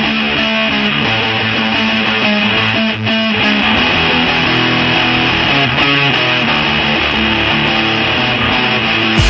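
Loud recorded guitar-driven pop-rock music playing over a sound system, with a steady beat and bass.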